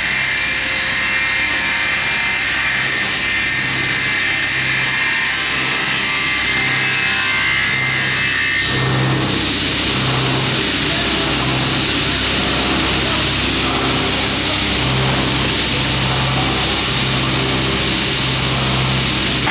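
Double-spindle multi-blade ripsaw with 355 mm circular blades running and ripping a timber into boards. A steady whine gives way to a coarser, noisier cutting sound about nine seconds in.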